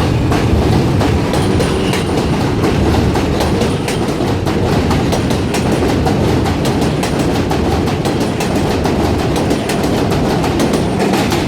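New York City subway L train running between stations, heard from inside the car: a loud, steady rumble with rapid clickety-clack of the wheels over the rail joints.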